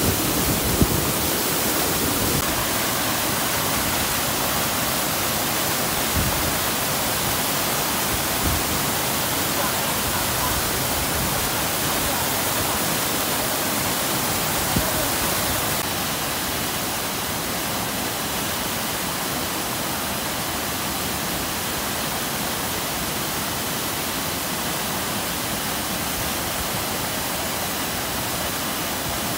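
Himalayan mountain stream rushing steadily, a dense hiss of fast-flowing water. It drops slightly in level about halfway through.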